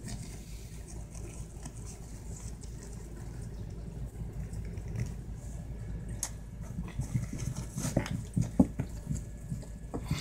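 Soft thumps and scuffles from a kitten scampering and pouncing, over a steady low rumble, with a cluster of sharper knocks about eight seconds in.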